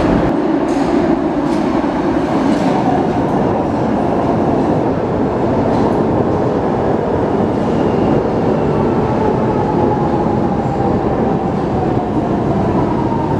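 Lisbon Metro train running into an underground station and past along the platform. Its wheels click over rail joints in the first few seconds, and near the end a whine sets in that falls slowly in pitch.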